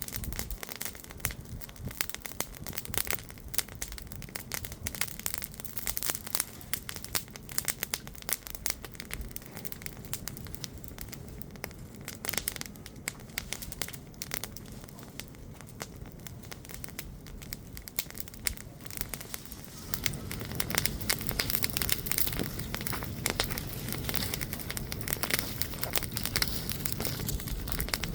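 Wood bonfire burning, crackling and popping with dense, irregular snaps; about twenty seconds in a steady low rush grows louder beneath the crackle.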